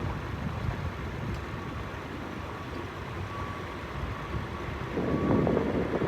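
Steady outdoor background rumble, swelling into louder, gusty noise about five seconds in.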